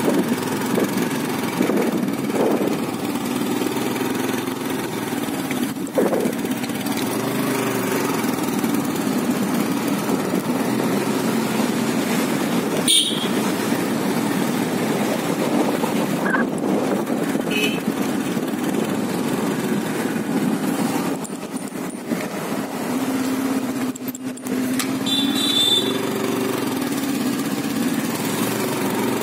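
Small vehicle engine running steadily while moving along a road, with road rumble. A single sharp knock about 13 seconds in.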